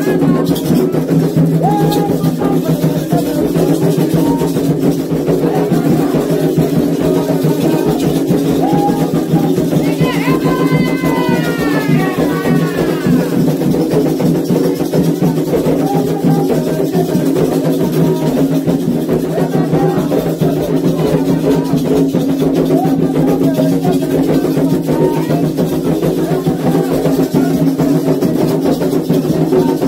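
Candomblé toque for Iansã: hand drums played in a steady rhythm under group singing, with a brass adjá bell being shaken. A few brief high gliding calls sound out over the music about ten to thirteen seconds in.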